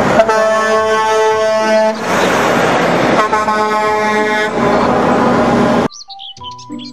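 Semi-truck air horn sounding twice, each blast about a second and a half long, over steady truck engine and road noise. The sound cuts off suddenly near the end.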